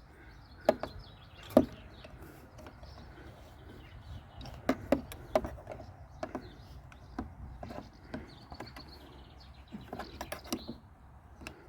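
Scattered clicks and clinks of metal hand tools working at the bolts that hold a lawnmower's carburetor, with a few sharp knocks close together.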